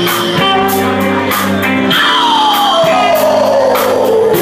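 Rock band playing: held bass and keyboard notes over drums with a steady cymbal beat. About two seconds in, a long smooth glide falls in pitch until near the end.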